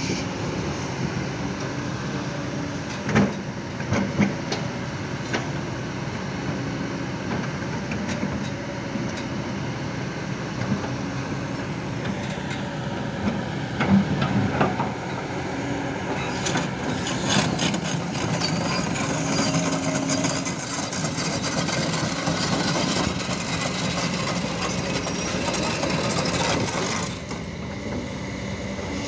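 Heavy diesel machinery running steadily, with a few sharp knocks and a stretch of metallic clatter near the middle.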